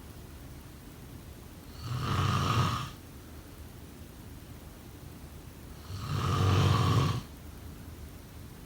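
Snoring: two snores about four seconds apart, each lasting about a second, in the slow rhythm of sleep breathing.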